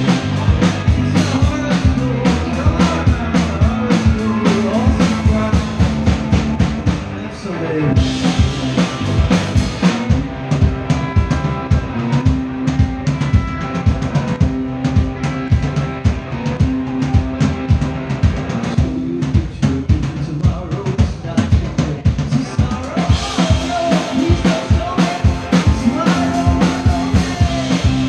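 A three-piece rock band playing live: electric guitar, bass guitar and a drum kit with steady kick and snare hits. There is a brief drop about seven seconds in, after which the cymbals come in brighter; they brighten again near the end.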